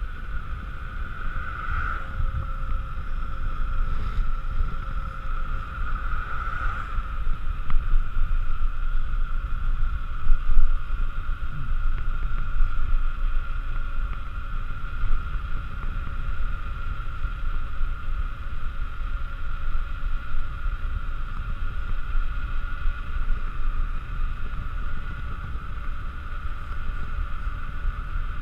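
Wind rushing and buffeting over the action camera's microphone on a fast downhill bike ride, with gusts swelling irregularly. Under it, a steady hum from the mountain bike's knobby tyres rolling on asphalt.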